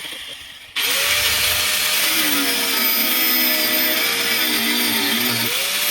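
An angle grinder starts up about a second in and runs steadily, its pitch dipping and recovering as it bites. It is cutting through a rusted-on, seized rear anti-roll bar link.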